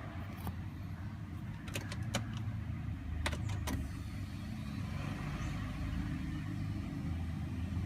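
Car engine idling with a low, steady rumble, the car said to have a random misfire. A few short sharp clicks come about two seconds in and again about three and a half seconds in.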